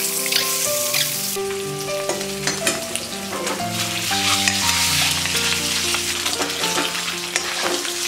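Peeled boiled eggs sizzling in hot oil in a metal kadai, a steady frying hiss with a few light clicks against the pan. Background instrumental music plays over it.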